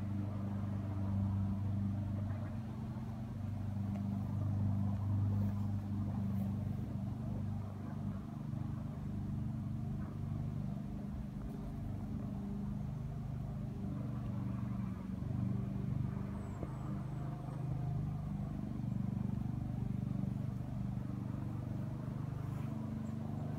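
A steady low mechanical hum with a few constant pitches, the kind made by engines or machinery running at a distance.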